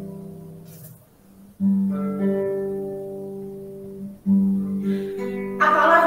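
Acoustic guitar: chords strummed and left to ring, a fresh one about a second and a half in and another about four seconds in, each fading away slowly.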